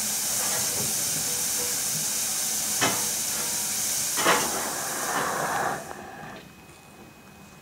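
Steam hissing steadily from the standing Southern Railway Bulleid West Country class Pacific 34007 Wadebridge, with two sharp knocks about three and four seconds in. The hiss cuts off abruptly about six seconds in, leaving a much quieter background.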